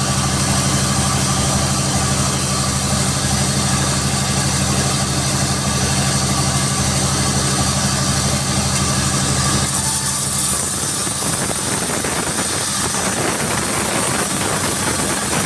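Sawmill machinery running with a steady engine-like hum. About ten seconds in, the hum gives way to a rougher, noisier sound.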